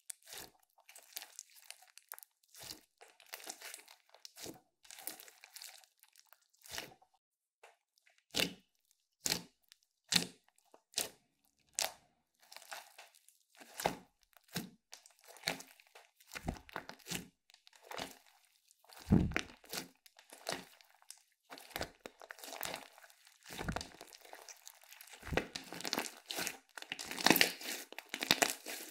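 Slime being squeezed and worked by hand, giving irregular crackling pops and crunches with a few heavier soft thuds, getting busier toward the end.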